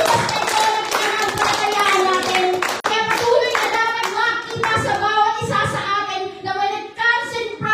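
Group singing a worship song, led by a woman's voice over a microphone, with hands clapping along. The clapping is thickest in the first three seconds, after which the sung melody stands out clearly.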